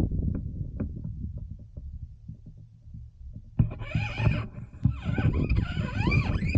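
Wind buffeting the microphone, a low rumble with scattered pops. About halfway through, a louder wavering sound that slides up and down in pitch joins in and carries on to the end.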